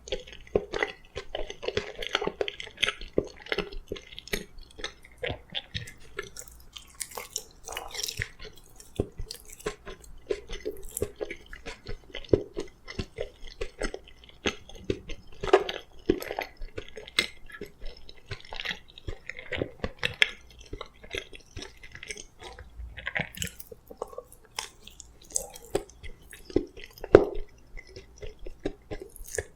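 Close-miked chewing of soft boiled sweet potato: irregular wet mouth noises and short clicks of eating.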